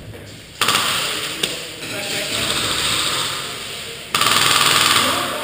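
Airsoft guns firing rapid full-auto bursts in a hall that echoes. One burst starts suddenly about half a second in and runs on for several seconds, and a louder one starts suddenly about four seconds in.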